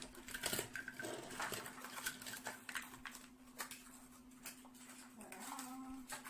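Small die-cast metal toy cars clinking and clicking against each other as they are picked up and set down in rows, in short irregular clatters over a steady low hum.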